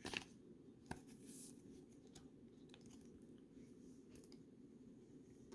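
Near silence with a few faint clicks and rustles of a trading card being slipped into a plastic card sleeve.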